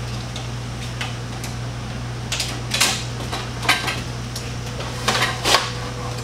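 Aluminum stretcher bars and their brackets clinking and knocking together as the frame corners are fitted: a handful of separate sharp metallic knocks over a steady low hum.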